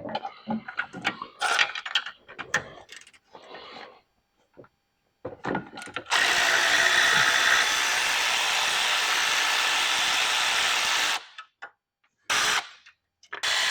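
Tools clattering against metal, then a handheld power tool runs steadily for about five seconds and gives two short bursts near the end.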